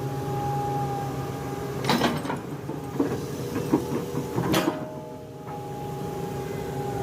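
Komatsu PC200-8 hydraulic excavator running, its diesel engine and hydraulics holding a steady hum with a whining tone. Clusters of sharp knocks and clatter come about two seconds in and again around four and a half seconds.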